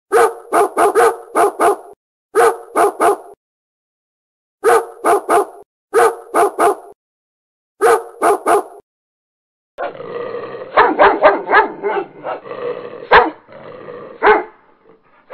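A dog barking in quick runs of three to five barks with short silences between. About ten seconds in, more barks come over a noisy background, the loudest near the thirteen-second mark.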